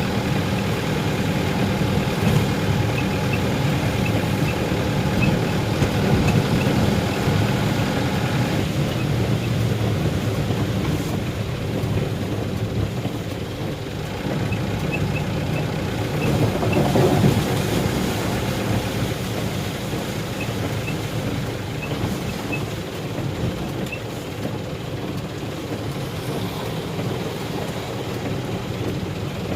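A motor vehicle's engine running steadily while driving; its note changes about eight seconds in.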